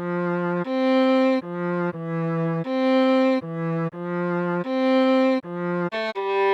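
Solo viola playing a slow melody of long bowed notes that swap back and forth between a lower and a higher pitch, with a few quicker notes near the end.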